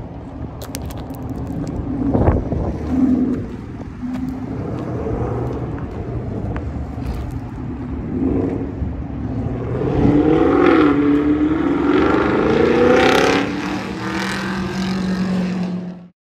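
2023 Camaro SS's 6.2-litre V8 sounding through a Corsa Extreme catback exhaust as the car drives off, with a sharp blip about two seconds in. From about ten seconds in the note climbs as it accelerates, loudest near thirteen seconds, then settles to a steadier drone before cutting off suddenly.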